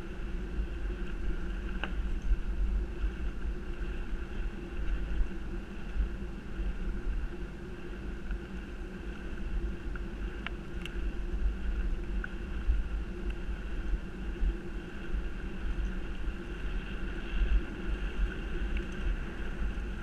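Wind buffeting on the microphone over the steady rumble of a bicycle rolling fast along a dirt trail, with a faint click now and then.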